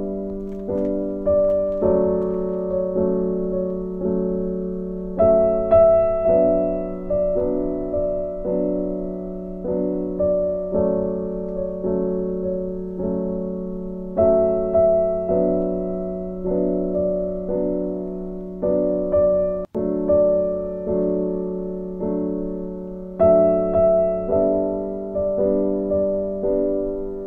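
Background music: a soft piano melody, notes struck and left to fade one after another, with a momentary drop-out about twenty seconds in.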